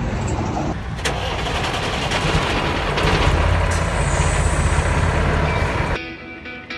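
Semi-truck diesel engine running, heard from inside the cab, with a deep rumble that grows louder about halfway through. It cuts off abruptly near the end, where guitar music begins.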